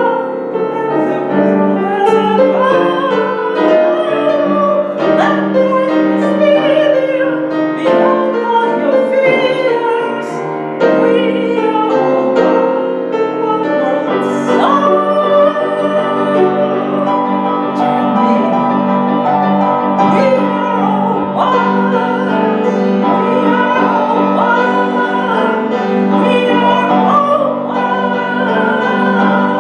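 A woman singing with vibrato over piano accompaniment, a song performed by voice and piano.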